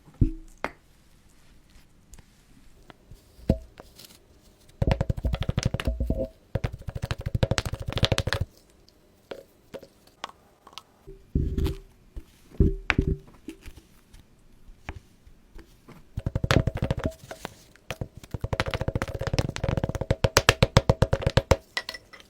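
Kinetic sand being cut and squished, heard as crisp crunching clicks. There are two long runs of rapid, evenly spaced crunches, with single plops and knocks between them.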